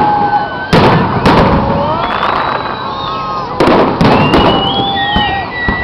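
Aerial fireworks going off: several sharp bangs, clustered about a second in and again around four seconds in, with wavering high tones sounding between them.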